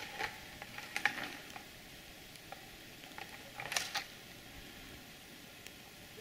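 Dry dead twigs and brush cracking and scraping in three short bursts: at the start, about a second in, and just before the four-second mark, faint, with quiet in between.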